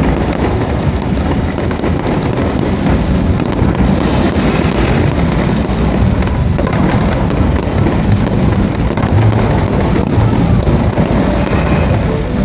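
Fireworks going off in a rapid, continuous crackle of many small bangs, with no pauses.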